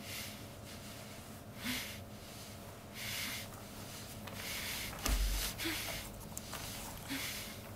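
A gagged woman breathing hard through her nose, about six short hissing breaths a second or so apart. A dull low thump comes about five seconds in.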